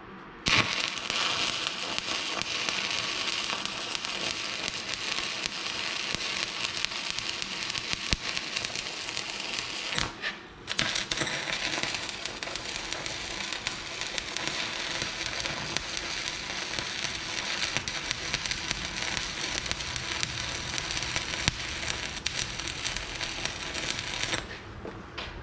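Stick welding arc crackling steadily as a bead is run. The arc breaks off briefly about ten seconds in, is struck again, and stops shortly before the end.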